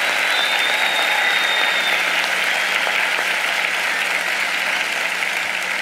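Large audience applauding steadily, a dense even clatter of many hands clapping that eases slightly near the end.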